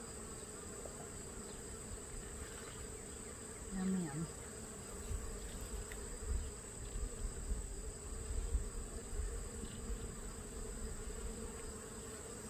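Honeybees buzzing in a steady hum around an open Langstroth hive during an inspection, with some low rumbling partway through.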